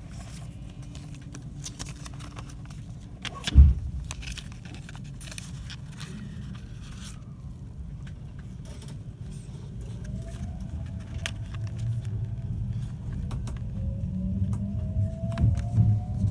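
521 series electric train running with a steady low rumble and a single loud thump a few seconds in. From about ten seconds in, the traction motors give a rising whine as the train picks up speed.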